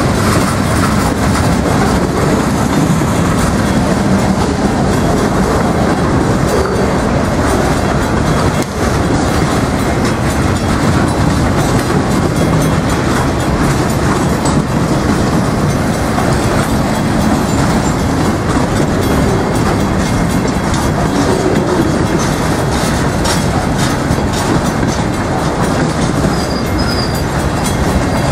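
Freight train cars rolling past at close range: a loud, steady rumble and clatter of steel wheels on the rails, with no horn.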